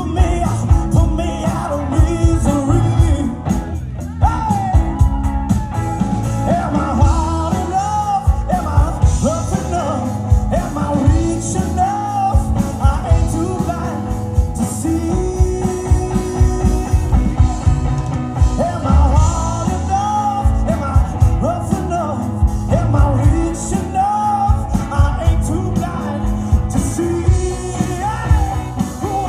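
Rock band playing live: a steady drum beat under a bending, sustained melody line.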